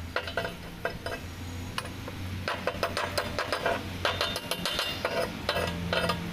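A pointed steel chipping tool knocking slag off a fresh weld bead on steel angle iron: rapid, irregular runs of sharp metallic clinks and scrapes. A steady low hum runs underneath.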